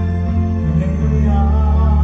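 Hawaiian hula song playing: held chords over a strong, steady bass, with a singing voice carrying the melody from about halfway in.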